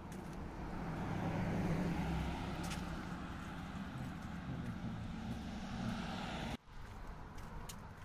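A car passing by: engine and tyre noise swell to a peak about two seconds in, then slowly fade.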